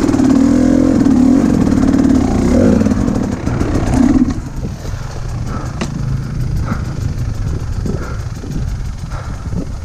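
Dirt bike engine running under load with a wavering note. About four seconds in the engine sound drops away sharply, leaving a quieter low rumble with a few small knocks.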